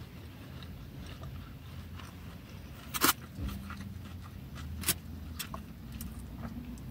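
Eating sounds: a plastic fork clicking and scraping in a styrofoam takeaway box, with quiet chewing and two sharper clicks about three and five seconds in, over a low steady rumble inside the car.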